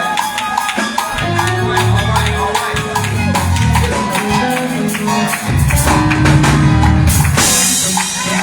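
Church band music with held organ-like chords, a bass line and a busy tambourine and drum beat.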